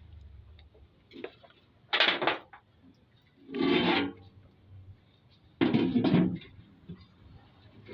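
Three short scraping, rubbing sounds of metal parts being handled and slid against each other, about two, four and six seconds in.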